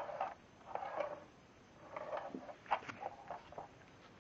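Handling noise on a sliding compound miter saw: rustling and scraping, with several small clicks and knocks, as the saw head and its plastic blade guard are pushed and moved by a gloved hand.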